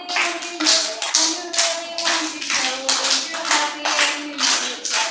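A group of young children clapping in a steady rhythm, about three claps a second, along with a song being sung.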